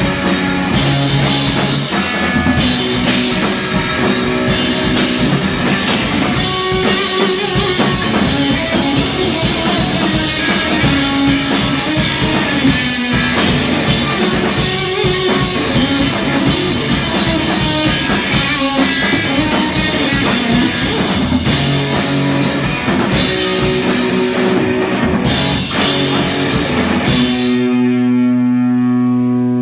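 Live rock band playing an instrumental passage on drum kit and guitar. Near the end the drums stop and a held chord rings on.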